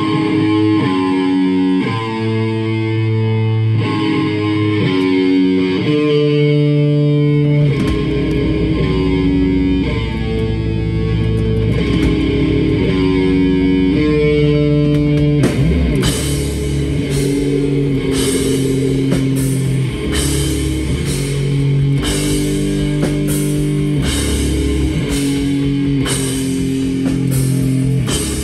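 Live heavy metal band: electric guitars play a riff of held notes, a low bass joins about seven seconds in, and the full drum kit with cymbals comes in about halfway through.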